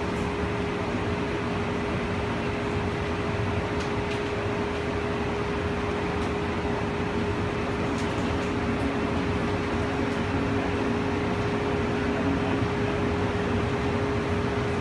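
Steady running noise inside a moving cable-hauled people-mover car, a low rumble and hiss with a constant hum.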